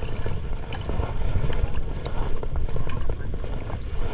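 Wind buffeting the microphone on a fishing boat at sea, a steady low rumble with a few faint knocks.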